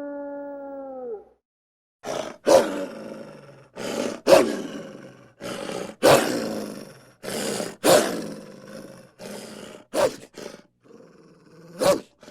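Wolf giving a series of short, harsh growling barks, about one every one and a half to two seconds, following the end of a falling howl.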